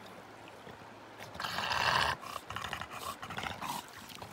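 English bulldog giving a short, rough vocal sound about a second and a half in, lasting under a second, followed by a quieter run of short rhythmic sounds.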